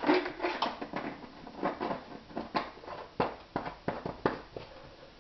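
Irregular light knocks and clatter of kitchen items being handled and set down on a counter.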